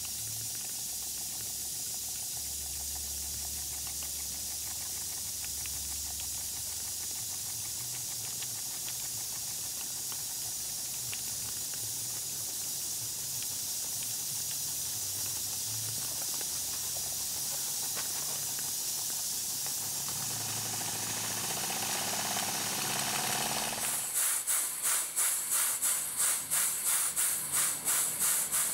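A small twin-cylinder model steam engine running fast, its exhaust an even hiss. Near the end it gives way to a second model steam engine whose exhaust comes in regular chuffs, two or three a second.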